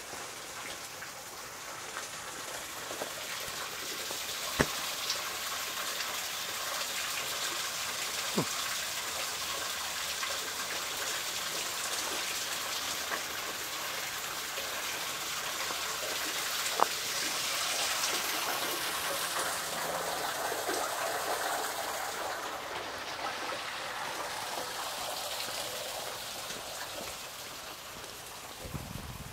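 Steady hiss of wet snow falling onto wet pavement, with three sharp single taps spread through it.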